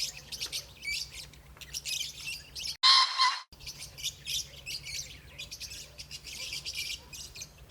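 A flock of small birds chirping rapidly and continuously, broken about three seconds in by one louder, harsh call lasting under a second.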